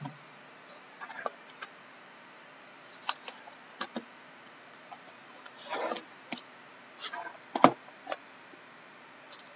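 Shrink-wrapped cardboard card boxes being handled and set down on a wooden table: scattered light taps and knocks, a brief rustle about six seconds in, and a sharper knock a little later.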